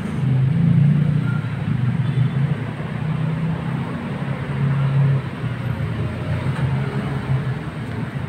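Low, steady motor rumble with a wavering hum, loudest in the first second and easing a little after about five seconds.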